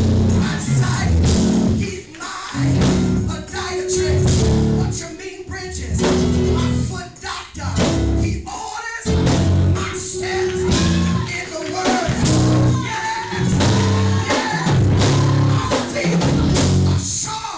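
Live gospel music with singing over a heavy pulsing beat and low chords.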